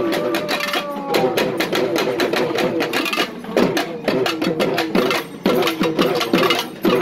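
Live Tamil temple festival music: fast, dense drumming with a pitched line that holds notes and then swoops down in pitch, over and over.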